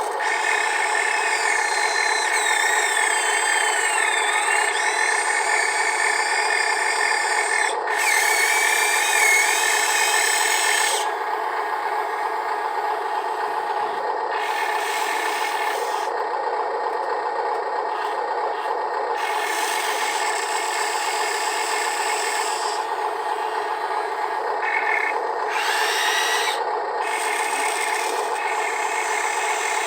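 Electric motors and gearboxes of Huina RC construction machines whirring steadily while loading sand. A higher whine glides up and down in pitch as the motors change speed, most clearly in the first several seconds and again near the end.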